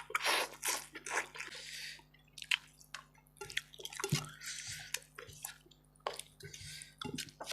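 Close-miked wet eating sounds: irregular lip smacks, squelches and chewing of rice and spicy chicken curry.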